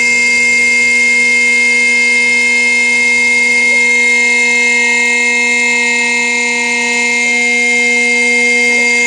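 A motor running at a steady speed, giving a constant whine with many overtones.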